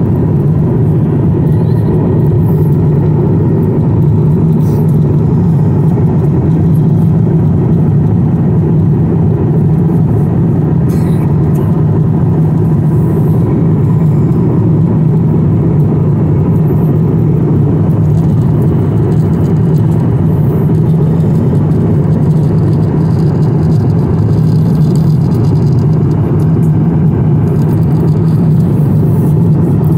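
Steady, loud cabin noise of a jet airliner at cruise, heard from a window seat: the even rumble of engines and airflow, strongest in the low range.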